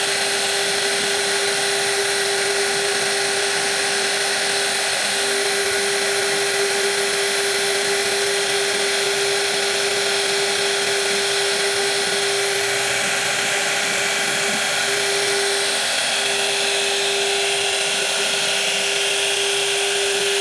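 Power tool with a high-speed motor running steadily under load, a constant whine over a hiss, briefly dipping twice.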